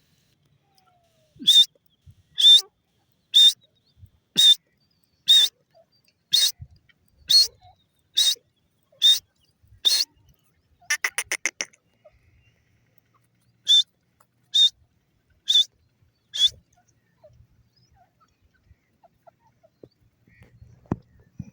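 Female grey francolin calling: a series of sharp, high calls about one a second. A quick rattling run of notes comes midway, then four more calls.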